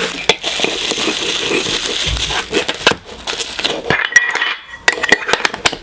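Handling of a Funko Soda can and its packaging: a rustling crinkle, then a run of light clinks and taps, one with a brief ring.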